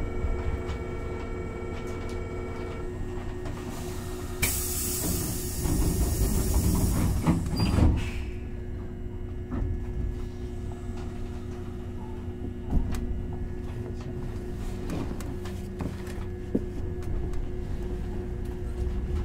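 Hankyu 3000-series commuter train standing with its doors open and about to leave: a steady tone stops about three seconds in. From about four seconds in comes a loud hiss of compressed air lasting a few seconds, with knocks as the sliding doors close near its end. Then the train's equipment hums steadily, with occasional clicks.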